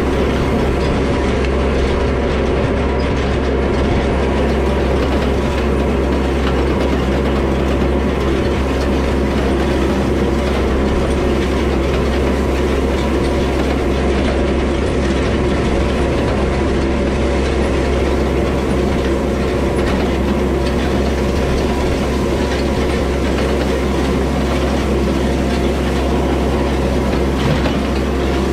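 Yanmar diesel tractor running steadily while towing an old ground-driven side-delivery hay rake, with a continuous clattering from the rake's reel and tines.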